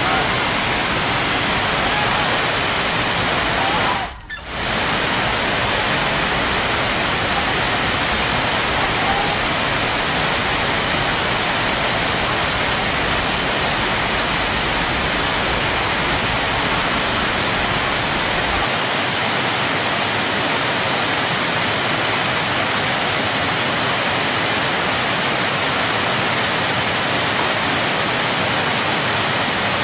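Steady rush of falling water from a large waterfall, an even wall of noise broken by a split-second gap about four seconds in.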